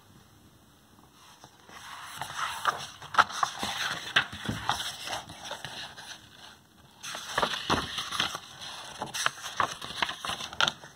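A hardcover picture book being handled and opened: paper rustling and crackling with many small clicks and knocks, starting about a second and a half in, with a brief lull near the middle.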